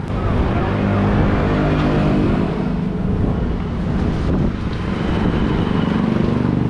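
An engine running steadily, a low drone that fills the whole stretch.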